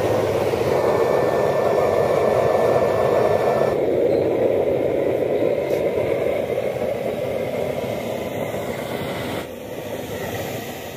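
Homemade waste-oil burner stove running with an electric blower forcing air through its feed pipe: a steady roar of flame and fan, dropping in level about four seconds in and again near nine and a half seconds.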